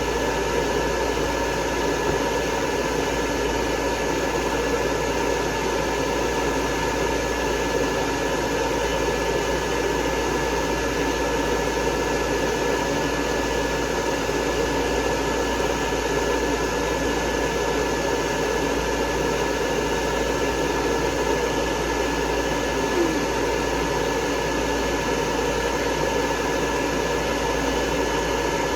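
Hair dryer blowing continuously at a dog's coat: a steady rush of air with a constant high whine, unchanging in level.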